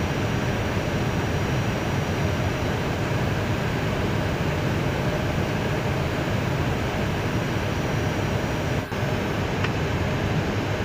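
Steady cabin noise inside an Airbus A319 cockpit while taxiing on a single engine: a low hum of the running engine and air-conditioning under an even rush of air.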